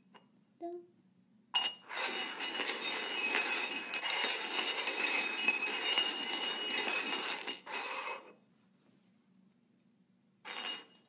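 Small stainless-steel cups being slid and shuffled across a hard floor: a continuous scraping with light metallic clinks from about a second and a half in to about eight seconds, then it stops. A brief scrape near the end.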